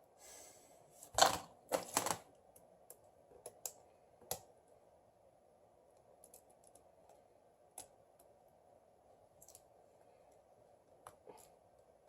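Small clicks and taps of hand tools and phone parts being handled while fitting a smartphone's cables and motherboard, a cluster of louder knocks about a second in, then sparse light ticks.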